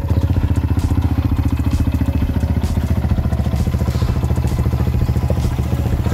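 Engine of a 17-year-old motorcycle idling steadily with a rapid, even putter.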